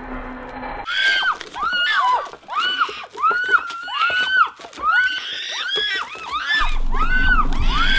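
Many overlapping high-pitched shrieks, each rising and then falling in pitch, following one another several times a second. They cut in abruptly about a second in, and a low rumble rises beneath them near the end.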